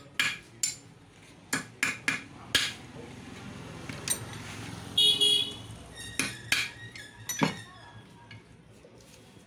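Hammer striking a pointed screwdriver-type punch against the bearing in a pump motor's cast end shield: about ten irregular, sharp metallic strikes as he tries to drive out a bearing that is stuck too tight to come out. A brief high ringing tone sounds about five seconds in.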